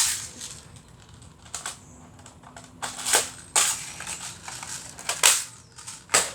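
Magazine reload on an airsoft AR-style rifle: hands handling the gun and magazine, with a series of sharp plastic-and-metal clicks and clacks. The loudest come right at the start, twice about three seconds in, and twice more near the end.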